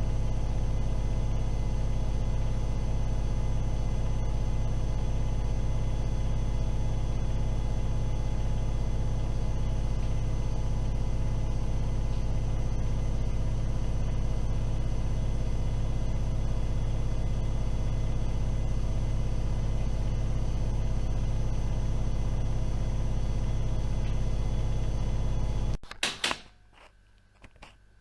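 AEG Öko-Lavamat washing machine, fitted with a wrong replacement motor that limits its spin to 1000 rpm, running with a steady hum. Near the end the sound cuts off abruptly and a few sharp clicks follow.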